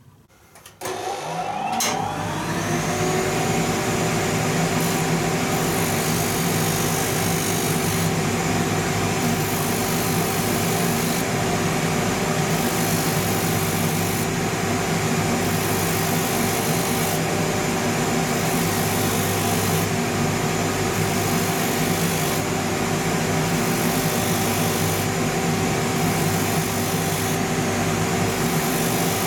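A shoe-finishing machine with dust extraction starts about a second in, its pitch rising as it spins up, then runs steadily. Its worn rotary sandpaper smooths the rough scratches off a leather outsole, and the sanding hiss comes and goes every couple of seconds as the sole is worked against the wheel.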